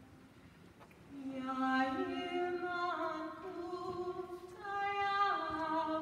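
A solo singer opening an a cappella choral piece, beginning about a second in with a slow melody of held notes that step up and down in pitch.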